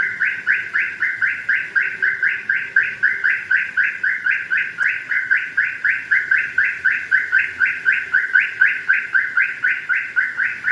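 Car reverse horn chirping: a rapid, evenly spaced train of short rising bird-like tweets, about four or five a second, signalling the car is backing up.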